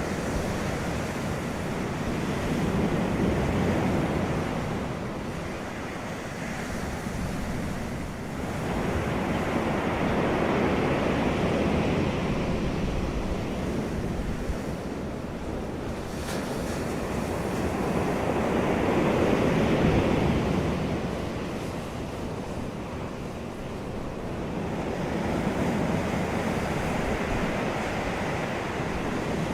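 Ocean waves breaking and washing up the shore without a break, surging and falling back in four slow swells about every seven to eight seconds.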